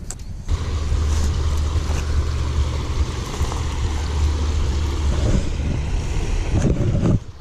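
Wind buffeting the camera's microphone: a steady low rumble under a broad hiss, starting about half a second in and cutting off abruptly near the end.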